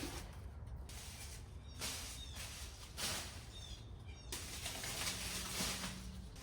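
Backyard ambience: small birds chirping in short calls, over several second-long bursts of leafy rustling and a steady low rumble.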